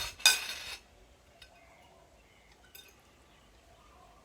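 A sharp clink of tableware, a plate or cutlery knocking, lasting about half a second near the start, followed by a couple of faint light clinks in a quiet room.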